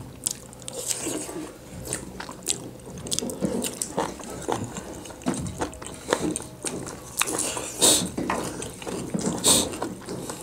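People eating close to the microphone: irregular wet chewing, smacking and biting, from hand-eaten millet dhido with liver and gizzard curry and juicy watermelon. A few louder wet smacks come near the end.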